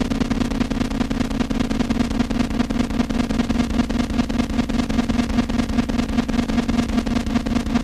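Harsh electronic noise music: a dense wall of noise over a steady low drone that pulses rapidly.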